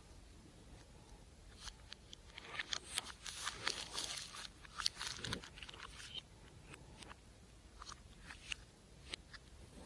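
Slime being squeezed and worked by hand, crackling with many small sharp pops and clicks. The pops come thickly a couple of seconds in, for about three seconds, then thin out to scattered clicks.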